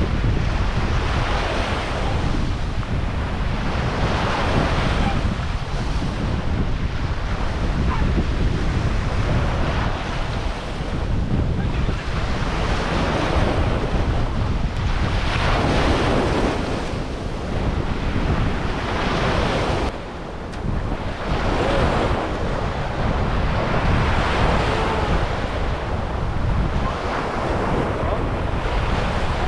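Sea waves breaking and washing on a sandy beach, swelling every few seconds. Wind buffets the microphone with a heavy low rumble.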